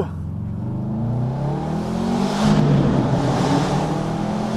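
Subaru boxer engine accelerating hard through a split exhaust, loud and unmuffled, its note rising steadily in pitch over the first couple of seconds and staying loud after.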